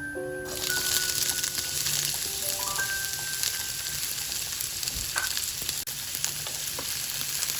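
Food sizzling and frying in a hot pan, starting suddenly about half a second in and then going on steadily. Soft background music plays faintly over it.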